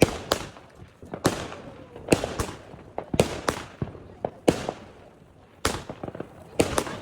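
Fireworks going off: about a dozen sharp bangs at irregular intervals, each trailing off in an echo.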